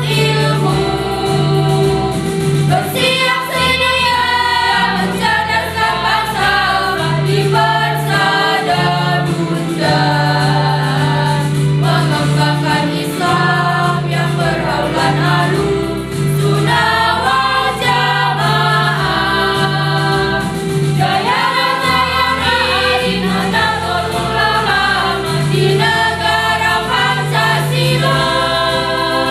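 Mixed choir of teenage boys and girls singing a march, accompanied by an electronic keyboard holding sustained bass notes and chords.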